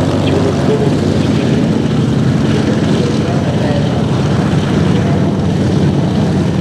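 Piston engines of World War II propeller fighters running in flight, a loud steady drone.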